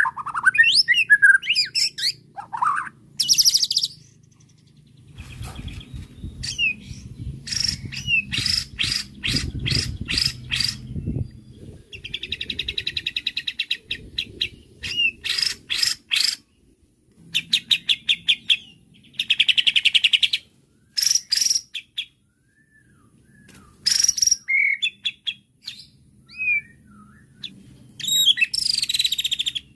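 White-rumped shama (murai batu) singing a varied, energetic song: runs of rapid sharp notes, buzzy rattling trills and sweeping whistles, phrase after phrase with short pauses between.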